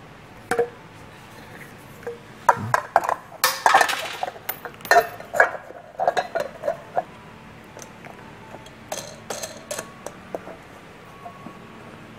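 Air compressor's intake air-filter element and its plastic cover being handled and refitted onto the pump head by hand: a run of light clicks and knocks with a brief scraping rustle, then a few more clicks near the end.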